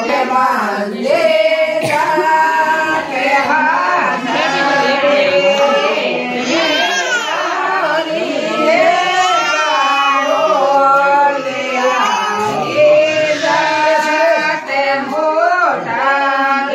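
High-pitched singing voice carrying a melody, with long held notes and a wavering, ornamented pitch.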